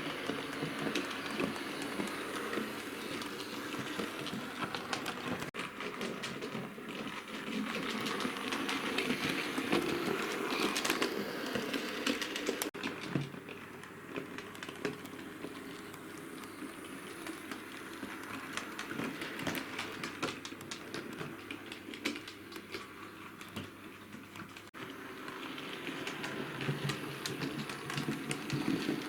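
Hornby Tornado OO-gauge model locomotive running along model railway track with its carriages, the wheels giving a fast, continuous run of light clicks over the rail joints and points.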